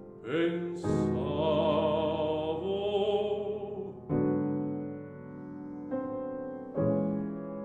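Classical art song for baritone and piano: the baritone holds a sung note with vibrato over the piano, then the piano plays on alone, striking chords about four, six and seven seconds in.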